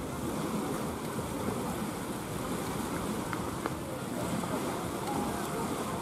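Small sea waves washing steadily onto a sandy beach.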